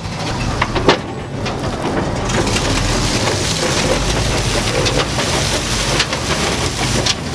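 A heavy rush of water gushing out of a dump truck's bed past the tailgate and splashing onto the ground, building about two seconds in, with the truck's engine running underneath.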